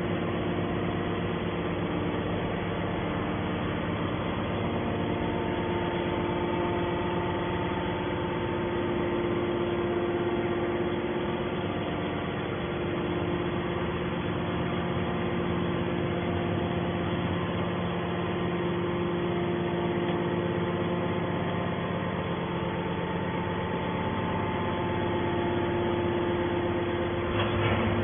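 Hydraulic scrap iron baler running: a steady machine hum with several held tones, briefly louder near the end.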